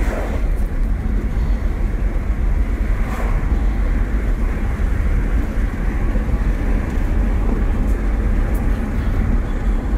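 Steady in-cabin rumble of a Nissan X-Trail under way: tyre and road noise with the engine hum, even throughout.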